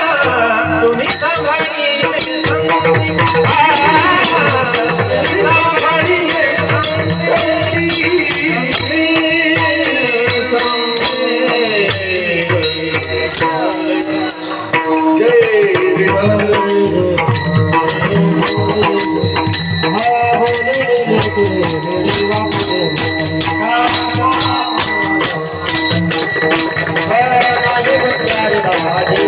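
Warkari kirtan music: voices singing a devotional tune over a mridang drum and a dense, steady clashing of small hand cymbals.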